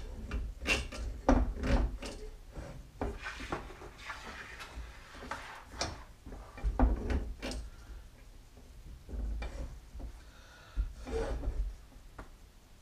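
Scattered knocks, clicks and rubbing as the parts and frame of a partly built X-Carve CNC machine are handled on a workbench, with firmer knocks about 7 and 11 seconds in.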